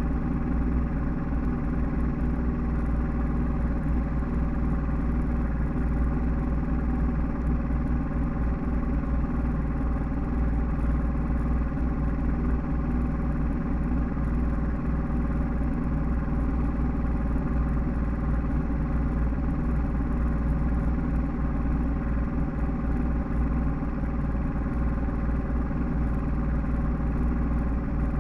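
Bass boat's outboard motor running steadily at low speed, an even engine drone with no change in pitch.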